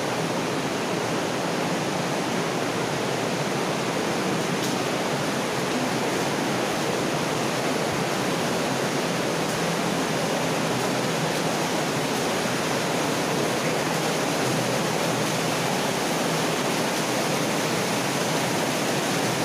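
Water running steadily through a stone-lined mine culvert, a constant even rushing with no breaks.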